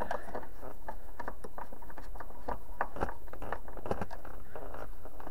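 Hand screwdriver turning a screw into a plastic shade-curtain retaining clip, making a run of small, irregular clicks and scrapes.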